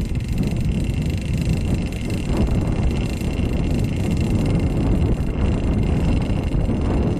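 Small two-stroke gasoline engine of a JR Ergo radio-controlled helicopter with a BH Hanson exhaust, running steadily at low speed while the rotor blades stay still, with wind buffeting the microphone.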